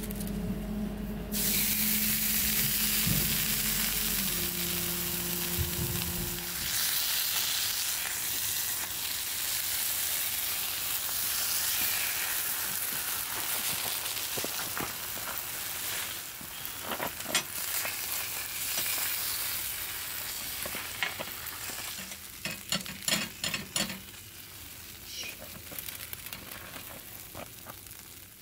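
Cheese sizzling as it melts and fries in a hot square cast-iron skillet over a gas burner; the hiss eases off slowly. In the last several seconds a spatula scrapes and clicks against the pan as the melted cheese is lifted.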